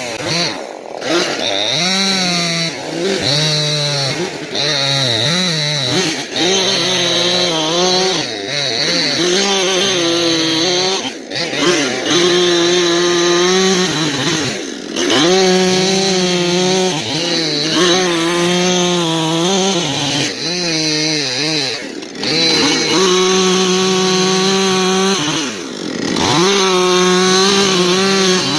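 Two-stroke chainsaw running at high revs while cutting wood. Its pitch holds steady for a few seconds at a time, then sags and climbs back again and again as the throttle is eased off and opened.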